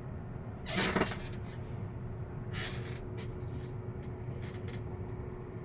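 Hands handling the fan motor and its wire leads: a brief rustling scrape about a second in and another near three seconds, with a few faint taps, over a steady low hum.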